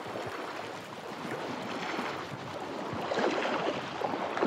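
A person wading through a shallow, fast-flowing river in boots, each step splashing through the current over the steady rush of the water; the splashes grow louder about three seconds in.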